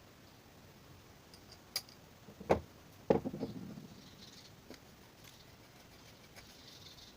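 A few sharp clicks and knocks of small parts and tools being handled, the loudest two about half a second apart near the middle, the second followed by a short rattle, during reassembly of a scooter carburettor.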